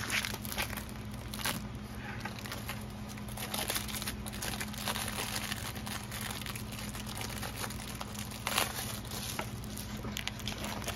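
Plastic packaging of a rolled diamond painting kit crinkling and rustling as it is handled and unwrapped by hand, over a low steady hum.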